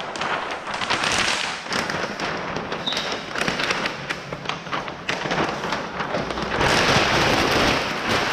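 Release liner being pulled off a sheet of paint protection film, the plastic crackling and rustling with a rapid run of sharp clicks, loudest near the end.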